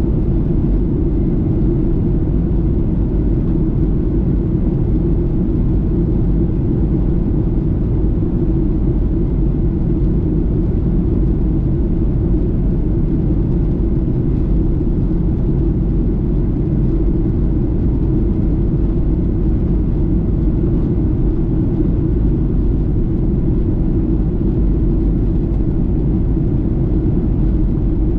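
Steady in-flight cabin noise of a Boeing 737-800: a constant low rumble of its CFM56 jet engines and the airflow over the fuselage, unchanging throughout.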